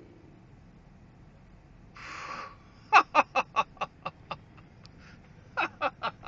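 A person laughing hard: a sharp breathy intake about two seconds in, then a run of 'ha's at about five a second that fades out, and a second run starting near the end.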